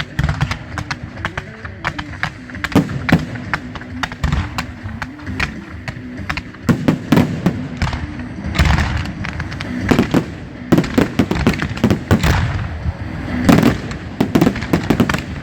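Fireworks display: a dense run of bangs and crackles that grows thicker and louder in the second half, with music underneath in the first half.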